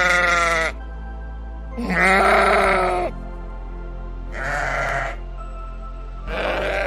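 Sheep bleating: a string of wavering bleats, each about a second long and about two seconds apart, over background music.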